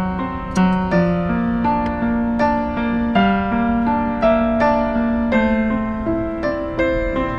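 Background music: a gentle piano or electric piano tune playing steady chords and melody notes.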